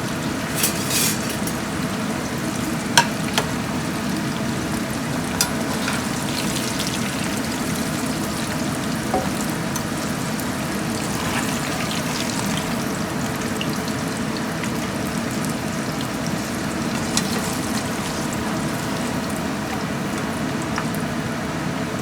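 Eggplant chunks frying in a lot of hot oil in a wok, a steady sizzle, with a few sharp clicks of a utensil against the wok, the loudest about three seconds in.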